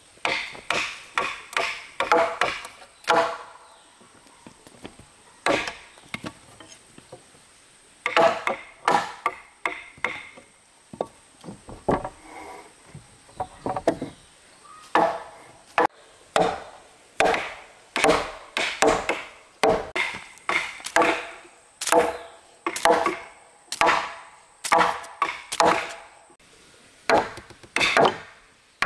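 A hand tool striking wood repeatedly, sharp ringing blows at about two a second in runs broken by short pauses: timber being cut by hand for the hut's columns.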